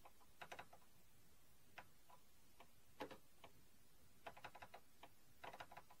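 Keys clicking on a TRS-80 Model III keyboard: short, sharp clicks in irregular bursts, some single and some in quick runs of several presses, as the keys are worked to play a game.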